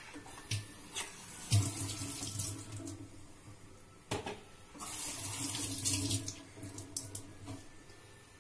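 Kitchen tap running into a steel sink while a bunch of fresh parsley is rinsed under it. The water runs in two spells with splashing, and there are a few knocks against the sink.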